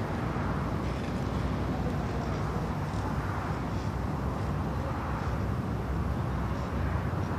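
Steady outdoor background rumble with a hiss above it, even throughout with no distinct events.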